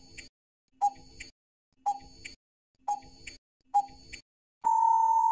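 Quiz countdown timer sound effect ticking about once a second, then a long steady beep near the end as time runs out.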